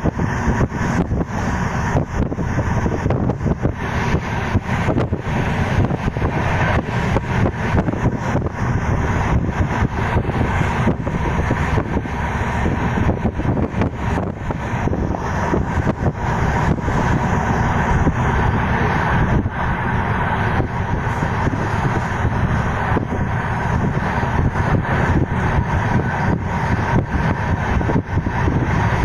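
Passenger train coach running at speed, heard through an open barred window: a steady loud rumble of wheels on rail, broken by frequent sharp clacks.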